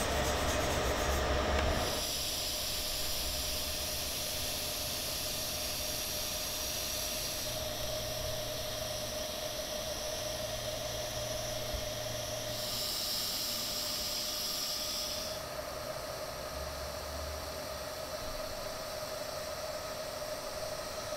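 TIG welding arc hissing steadily as joints in a tube handrail are welded, with a faint steady whine under it. The hiss changes in tone a few times, at about 2, 7, 12 and 15 seconds in.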